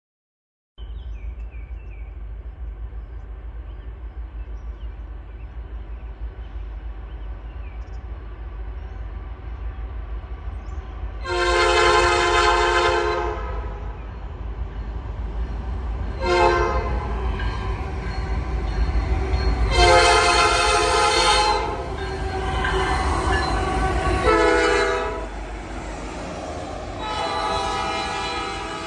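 Diesel freight locomotive horn sounding five blasts, long and short in turn, over the steady low rumble of a passing freight train.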